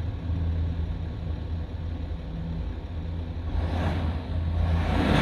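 BMW 330d's straight-six diesel heard at the twin tailpipes, idling steadily, then revved up about three and a half seconds in.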